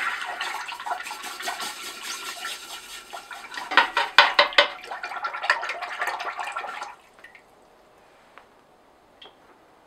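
Red-hot mild-steel spear being quenched in a pot of water: the water sizzles and bubbles, with a cluster of louder crackles about four seconds in as the rod is moved. The sizzling stops suddenly about seven seconds in, when the spear comes out of the water.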